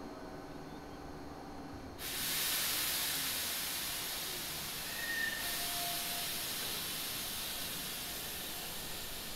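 A sudden hiss of compressed air let out from an electric train's air system, starting about two seconds in and slowly fading.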